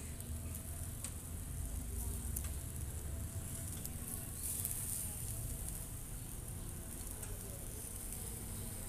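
Steady outdoor background noise: a low rumble under a high hiss, with a faint held tone and a few faint clicks.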